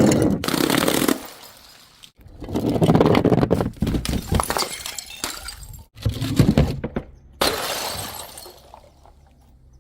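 Glass bottles breaking one after another: several sudden crashes of shattering glass, each trailing off over a second or so.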